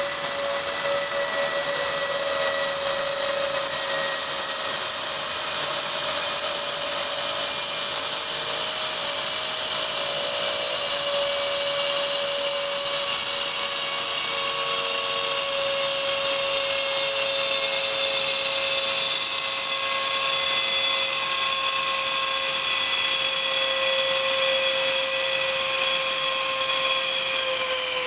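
Air whistling in an underground station's waiting room after an express train has passed through the tunnel: a loud, steady whistle in several high tones that slowly falls in pitch, dropping more steeply near the end.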